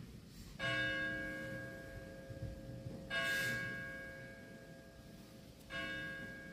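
Church bell tolling three times, about two and a half seconds apart, each strike ringing on and slowly fading.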